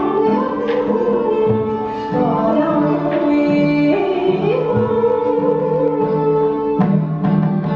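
Traditional Vietnamese music from a water puppet show's ensemble: pitched instruments play sliding notes under singing, with a few sharp percussion strikes.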